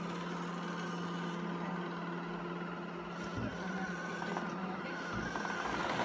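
LG Roboking robot vacuum cleaner running on carpet: a steady motor hum with a higher whine, and a couple of soft low thumps partway through.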